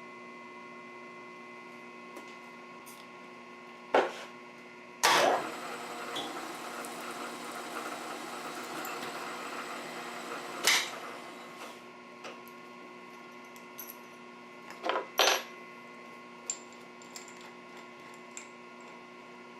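Milling machine running with a steady hum. After a sharp knock, a drill bit cuts into the steel plate for about six seconds and ends with a clunk. Near the end a few clicks and knocks follow.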